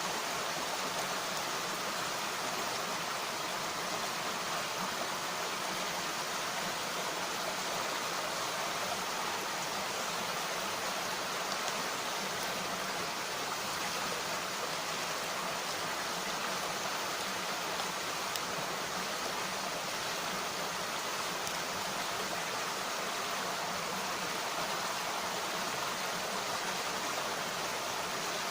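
Mountain stream water rushing and babbling steadily.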